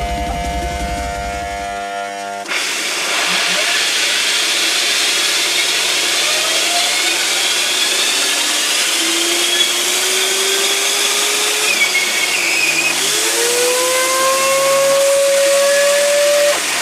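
Sci-fi space cannon sound effect charging up: a steady electric hum of several held tones, then about two and a half seconds in a loud hissing rush starts, with whining tones that slowly rise in pitch, cutting off sharply near the end.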